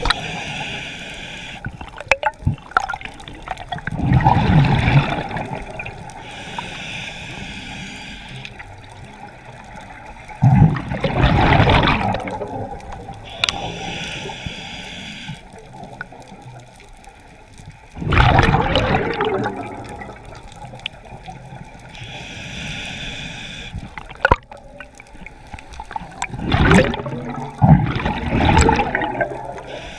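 A scuba diver breathing through a regulator underwater: a quiet hiss on each inhale, then a loud burst of exhaled bubbles, about every seven to eight seconds.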